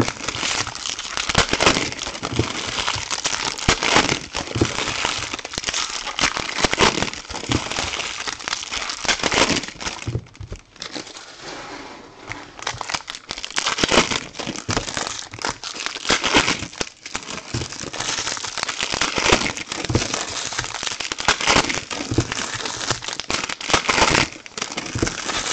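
Foil trading-card pack wrappers crinkling, crackling and tearing as packs are handled and ripped open, with a quieter stretch about ten seconds in.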